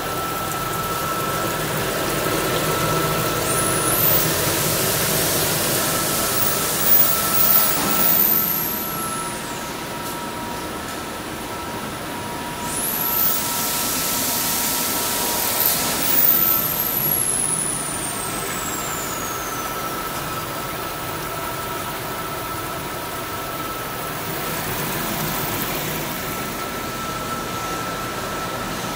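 Wave soldering machine running with a steady mechanical hum and two faint steady tones. Twice, about 3 and 12 seconds in, a loud hiss comes in with a very high whine that sweeps up and then slowly down.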